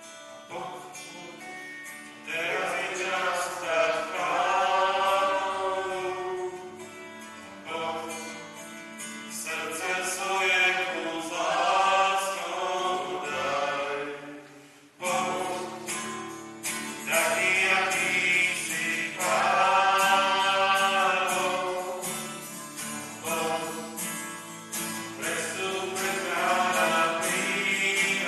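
A hymn sung with instrumental accompaniment, in phrases separated by short breaths, with a brief pause about halfway through before the singing starts again.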